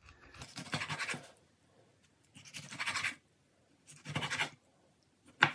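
Chef's knife cutting soft jarred white asparagus on a wooden cutting board: three scraping strokes of the blade against the board, about a second and a half apart, then a short sharp knock near the end.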